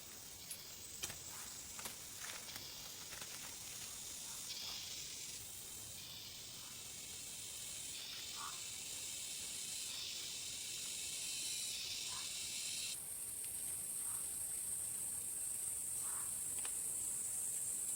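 Cicadas buzzing in a high, steady hiss, with layers of the chorus starting and stopping every few seconds and growing louder near the end. A few faint short calls and light clicks sound beneath it.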